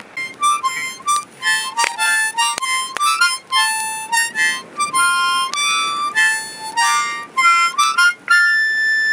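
A harmonica played solo: a quick run of short notes, ending on one held note near the end.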